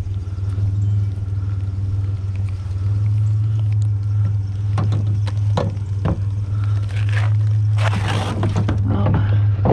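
Idling truck engine humming steadily, with a few sharp knocks and a short scraping rustle about eight seconds in as scrap such as a metal closet shelf is handled.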